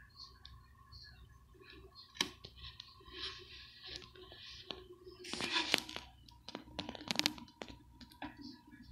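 Faint handling noise: scattered clicks and light rustles, with a louder rustle a little past halfway and a quick run of clicks soon after, over a faint steady tone.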